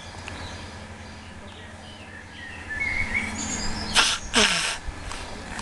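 Small birds chirping in a garden over a steady outdoor background, with two short, loud rushes of noise one after the other about four seconds in.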